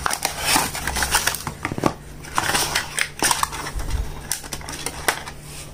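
Cardboard box and clear plastic packaging tray being handled and opened: irregular crackles, clicks and rustles.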